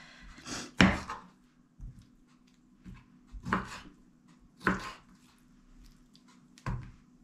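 Kitchen knife cutting raw chicken gizzards on a wooden cutting board: about six separate knocks of the blade on the board at uneven intervals, the first the loudest.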